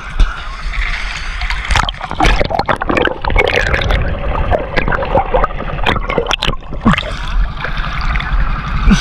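Water sloshing and splashing around a fishing boat, with irregular knocks and clatter over a steady low rumble.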